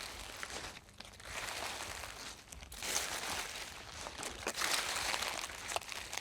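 Footsteps crunching through dry fallen leaves: about five crackling, rustling steps, each lasting around a second with short gaps between.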